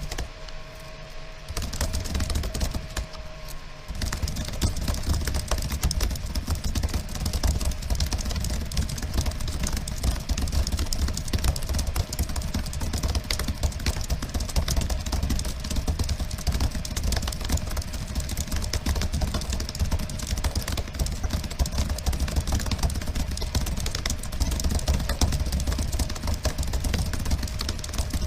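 Rapid typing on a computer keyboard: a fast, continuous clatter of keystrokes over a low steady rumble.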